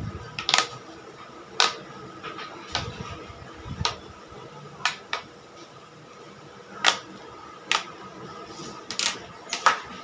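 Corrugated plastic pop tube toy being bent into a ring and stretched, its ridged sections snapping in and out with sharp irregular clicks, roughly one a second.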